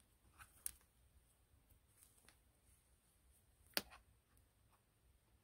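A few faint, sparse clicks of wooden knitting needles tapping together as stitches are lifted over one another, the sharpest about four seconds in, over near silence.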